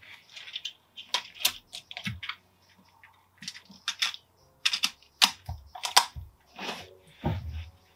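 Hands working a Reximex Myth PCP air rifle at the bench: a run of irregular clicks, taps and rustles from its action, with sharper clicks about five and six seconds in. No shot is fired.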